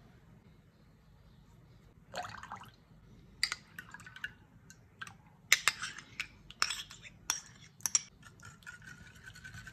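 Kitchen utensils clinking and knocking against a bowl in a run of sharp clicks, then liquid pouring with a steady, slowly rising tone near the end.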